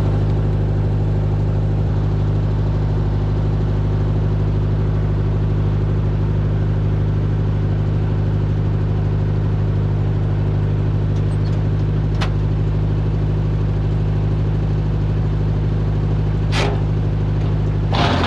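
Tractor engine running steadily under light load, with two short sharp ticks about twelve and sixteen and a half seconds in; near the end it gets louder and rougher.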